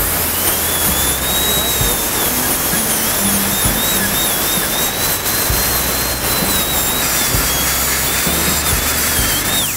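High-speed dental handpiece (air-turbine drill) grinding tooth enamel with a fine bur during a minimal veneer preparation: a high whine that wavers as the bur bites, over a steady hiss. The whine drops sharply near the end as the handpiece spins down.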